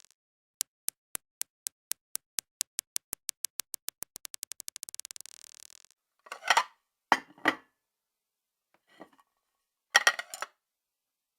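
A small hard ball bouncing on a hard surface: sharp clicks coming ever faster and fainter until it settles. This is followed by a few short bursts of clinking and clattering, like dishes or cutlery being handled, about halfway through and again near the end.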